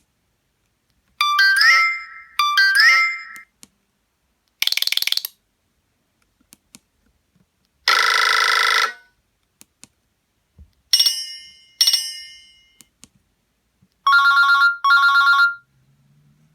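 Short electronic alert tones from a Nokia Asha 302 phone, played one after another with silent gaps. First comes a pair of chimes that glide up in pitch, then a fast trill and a steady tone about a second long. After that come two ringing chimes that fade out, and two pulsed beeps near the end.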